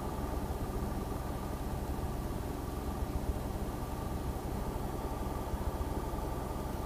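Single-engine light airplane's piston engine idling as it taxis, the propeller turning slowly; a steady low drone heard from inside the cockpit.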